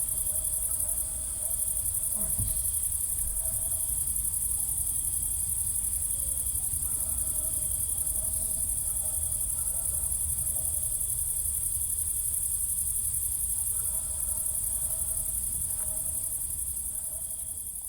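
Rural night ambience: a dense, steady chorus of crickets, with distant dogs barking now and then, fading out near the end.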